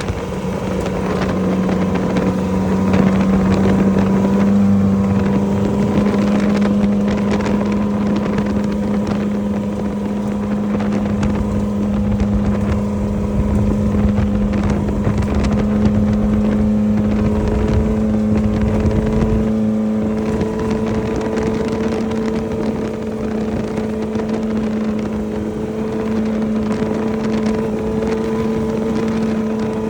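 Off-road race vehicle's engine running at a steady pitch, heard from on board at speed, with wind noise on the microphone. A low rumble underneath drops away about two-thirds of the way through.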